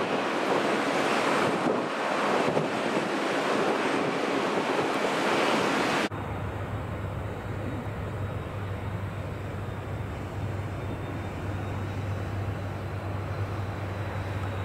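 Loud, steady jet engine noise from an Airbus A350-900's Rolls-Royce Trent XWB engines as it decelerates on the runway after touchdown, spoilers deployed. About six seconds in it cuts off abruptly and gives way to a quieter, low steady drone from an Airbus A330-300 on final approach.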